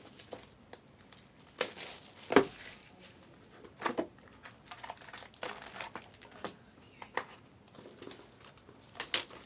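Packaging wrapper crinkling and rustling by hand in short, scattered bursts, a few seconds apart.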